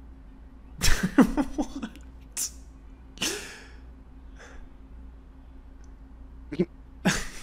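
A man's short burst of laughter, a quick run of pulses, followed by a breathy exhale; two more short sharp breaths or snorts near the end.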